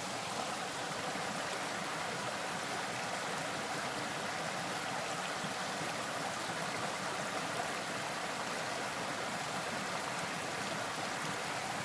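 Small rocky forest creek running over stones and mossy boulders: a steady hiss of flowing water, loud enough to drown out other sounds in the woods.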